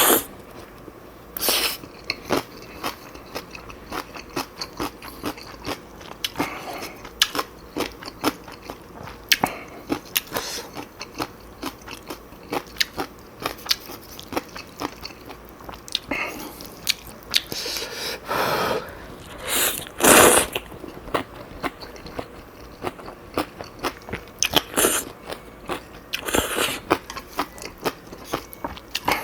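Close-miked eating sounds of a person eating black bean noodles and kimchi: steady wet chewing and crunching made of many small clicks, with a few louder bursts, the loudest about 20 seconds in.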